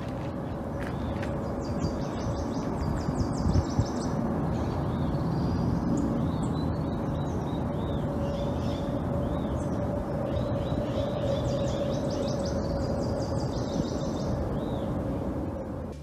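Several small birds calling and singing in trees: runs of quick, high chirps and rapid trills overlapping one another. A steady low hum and a low rumble run underneath.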